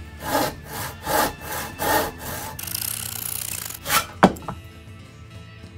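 Hand saw cutting a clamped pine board in back-and-forth strokes: a few slow strokes, then about a second of fast short strokes. It ends in a single sharp crack about four seconds in as the cut finishes.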